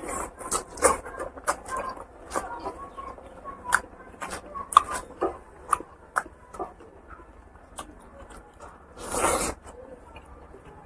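Close-miked wet chewing and lip-smacking of a man eating rice and pork curry, many quick irregular clicks and smacks. A short, louder rushing noise comes about nine seconds in.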